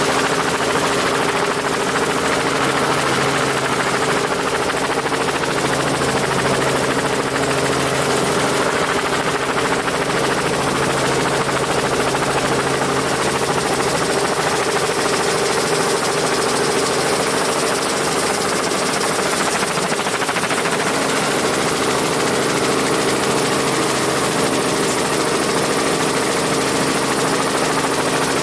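Helicopter with its rotor blades turning, running steadily with an even hum under a wide rushing noise and no change in speed or level.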